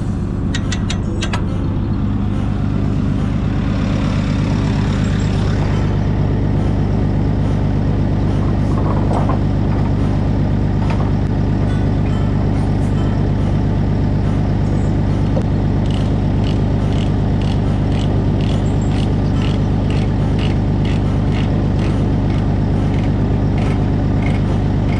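Bobcat loader's diesel engine running at a steady speed. From about fifteen seconds in, a regular clicking comes about twice a second.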